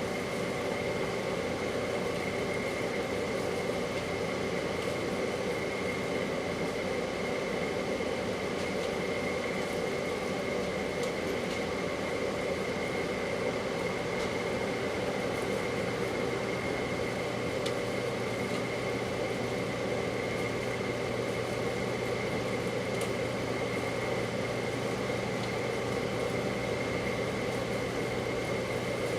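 Microwave oven running with a steady hum and a faint high whine, heating a small glass bottle of Monster M3 energy drink.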